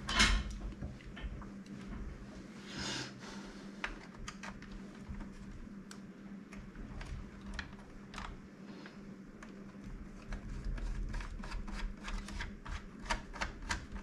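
Small hard-plastic clicks and taps as parts of an opened Nerf Ragefire blaster are handled and fitted by hand, with a louder knock right at the start and a quick run of clicks in the last few seconds.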